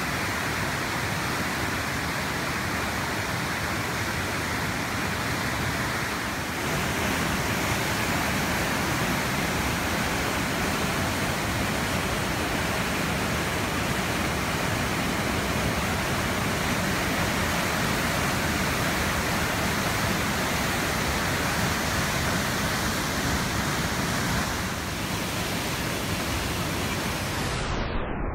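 A river in flood rushing past as a steady, loud torrent of churning brown floodwater.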